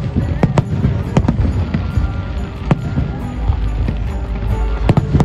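Aerial fireworks shells bursting: several sharp bangs at irregular intervals over a continuous low rumble.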